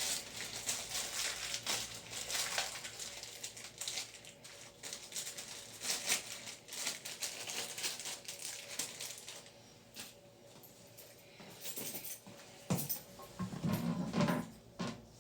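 Hands working on a toilet fill valve and its water supply line: plastic parts rubbing and scraping with many small clicks and knocks, quieter for a while, then a few sharper knocks near the end.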